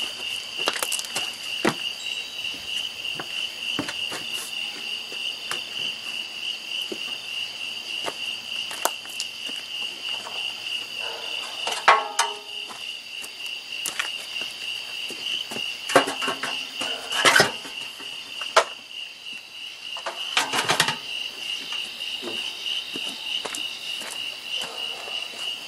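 Night insects trilling in a steady, fast-pulsing, high-pitched drone. Several sharp knocks and clunks break in over it, the loudest about halfway through.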